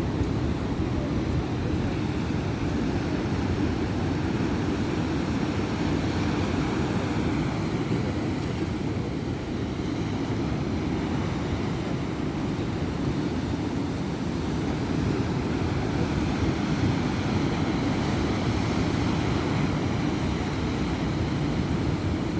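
Heavy surf of a rough sea breaking, heard as a steady low rumble.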